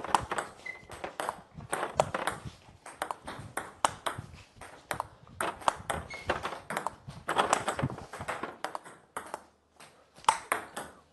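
Plastic table tennis balls clicking sharply off the table and rubber-covered bats, several times a second in an irregular rhythm, during backhand twist (banana flick) strokes. The clicks pause briefly shortly before the end, then a few more follow.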